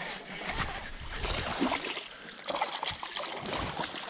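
Water splashing and sloshing as a hooked white bass is fought in at the surface on a fishing line. The splashing is irregular, with short clicks, and a little brighter about two and a half to three and a half seconds in.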